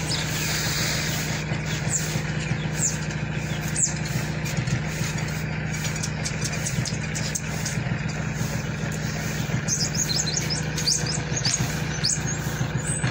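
A steady low mechanical hum, like a running engine, with small birds chirping over it in short high calls, a flurry of them about ten seconds in.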